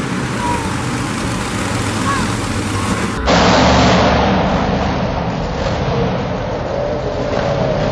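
Monster truck engine running hard over arena crowd noise. About three seconds in, the sound cuts to a louder stretch of the Demo Derby monster truck's engine revving through a long jump.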